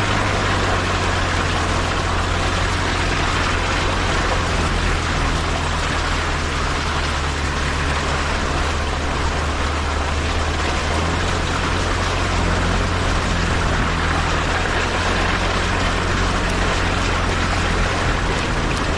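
Jeep engine running steadily, a low hum under a wide, even rushing noise as the Jeep drives.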